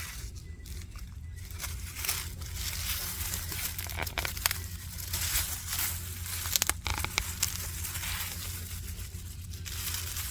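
Onions and weeds being pulled up by hand from a raised bed: rustling and tearing of leaves and roots coming out of the soil, with a few sharp snaps, over a steady low rumble.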